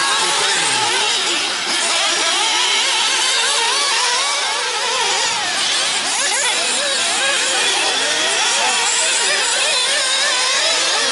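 Several 1/8-scale nitro RC buggies with two-stroke glow engines buzzing at high revs. Their overlapping whines keep rising and falling as the cars throttle up and brake around the track.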